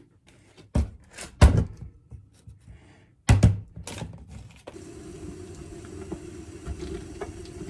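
A kitchen knife chopping a chocolate bar on a plastic cutting board: a few sharp knocks. Then, about two thirds of the way in, a steady hum with a hiss takes over while chocolate melts in a glass bowl over a pan of water on the stove.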